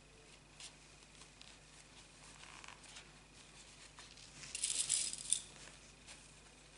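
Hands handling a crocheted cord bag and its fabric lining while tucking and pinning it: light rustling with small clicks, and a short, louder rustle about two-thirds of the way through.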